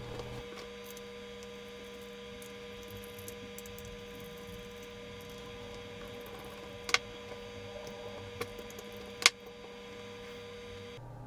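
Steady electrical hum, broken by a few short, sharp clicks of a screwdriver and small die-cast metal parts being handled on the beacon's switch panel. The two loudest clicks come about seven and nine seconds in.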